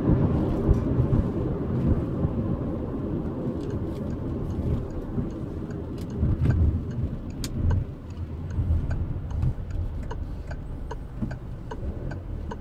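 Car cabin noise while driving: low road and engine rumble, easing off as the car slows. From about halfway in, the turn indicator ticks steadily about twice a second.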